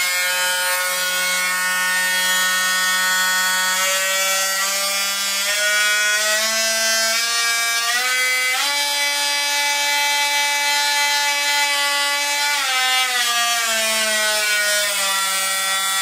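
Einhell Varrito cordless oscillating multi-tool running with nothing cut, its motor whine stepping up in pitch through the speed settings to top speed about eight or nine seconds in. It holds there for about four seconds, then steps back down through the speeds.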